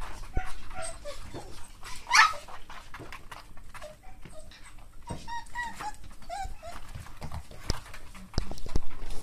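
Beagle puppies whimpering and yipping in short high cries, with one loud squeal about two seconds in, amid small scratching and clicking noises.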